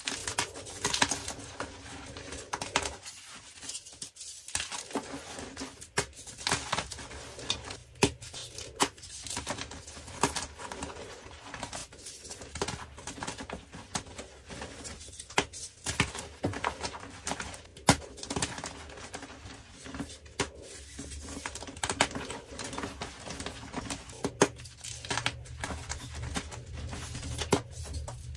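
Dyed gym chalk blocks being crushed and crumbled between the fingers: a dense run of irregular dry crunches and crackles, with powder and small chunks rustling on the pile.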